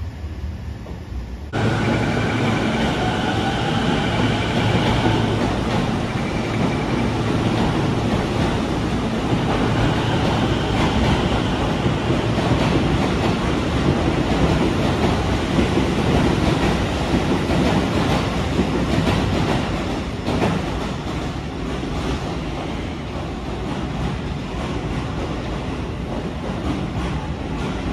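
Keio new 5000 series electric train running along a station platform: a steady rumble and clatter of wheels on rail that starts abruptly about a second and a half in. Over the first few seconds of it, a whining traction-motor tone shifts in pitch.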